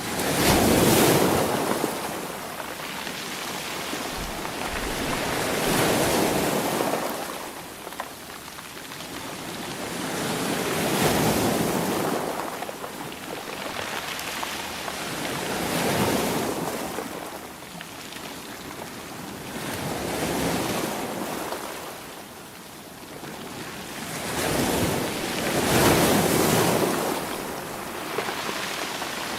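Sea waves rolling in, a wash of surf that swells and ebbs in slow surges about every five seconds.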